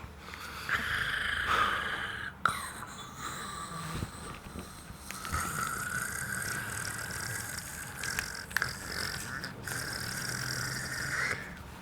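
A man snoring, with long drawn-out snores, one lasting several seconds in the second half.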